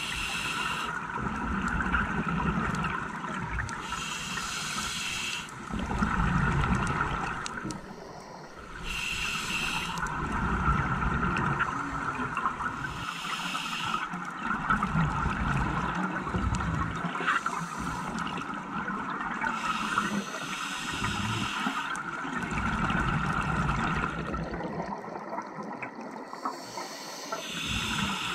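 Scuba diver breathing through a regulator underwater: a short hiss of air on each inhale every few seconds, each followed by a low rush of exhaust bubbles, over a steady hum.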